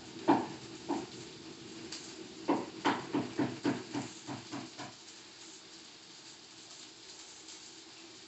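Short, sharp animal calls: two single ones, then a quick run of about nine that fades out halfway through, over a steady low hum.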